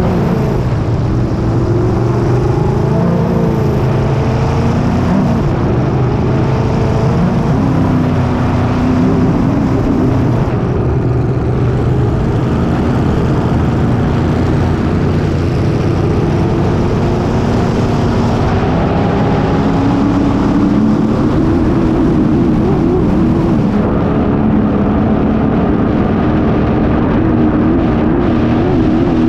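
Racing hydroplane's engine running hard at speed, heard from on board the boat, its note wavering up and down, over a steady rush of wind and water.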